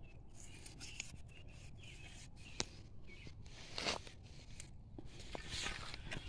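Hands scraping and pushing dry, gravelly soil around a cabbage transplant to cover and firm it in: faint rough scuffs with a few short sharp clicks of small stones, the loudest scuff a little before the 4-second mark.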